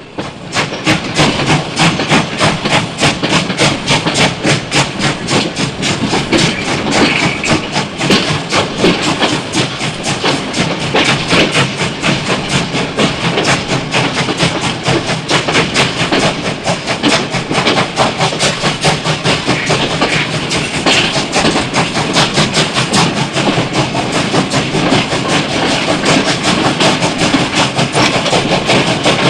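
Steam locomotive running, puffing steam in a fast, even chuffing beat over a steady hiss; it swells up within the first second.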